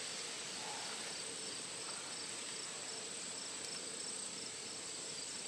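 Steady chorus of crickets and other insects, faint: a continuous high trill with softer repeated chirps just below it.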